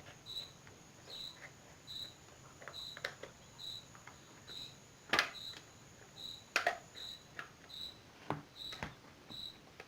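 Plastic clicks and snaps as a hair dryer's casing is levered apart with a flat screwdriver, about half a dozen sharp clicks spread irregularly. Underneath, a faint short high chirp repeats steadily a little over once a second.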